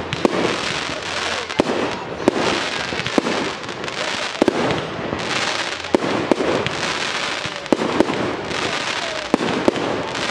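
Fireworks display: aerial shells going off in a string of sharp bangs, roughly two a second, over a continuous hissing crackle.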